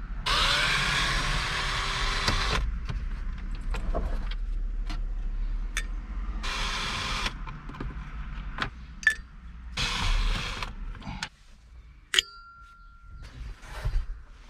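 A cheap cordless power driver running in three bursts of a couple of seconds each, the first winding up in pitch as it spins up, while it backs out the bolts holding the dash panel. Small clicks of the tool and bolts fall between the bursts, and a short steady beep sounds near the end.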